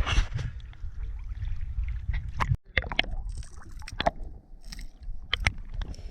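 Water sloshing and gurgling close to the microphone, over a steady low rumble, with many sharp clicks and knocks scattered through. The sound briefly cuts out a little past halfway.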